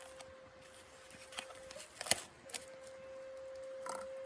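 Wood fire crackling, with a few sharp pops and cracks, the strongest about two seconds in. A steady whistling tone holds under it, breaks off briefly just before the middle, then comes back.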